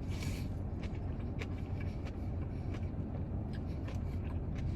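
Steady low hum of a car engine idling, with scattered faint clicks and rustles from handling food.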